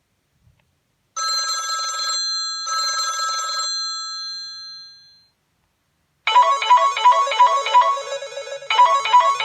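Samsung Star 2 (GT-S5260) phone ringtones: a short tone of two ringing chords, about a second and a half apart, that fades out. After a gap of about a second, a new ringtone starts: a quick melody of short notes repeating in a loop.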